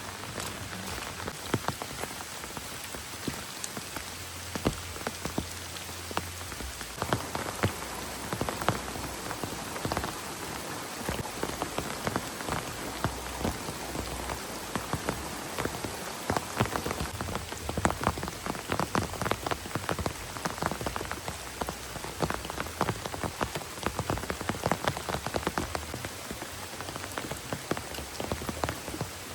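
Heavy rain falling steadily, with many sharp drop impacts ticking on a nearby surface.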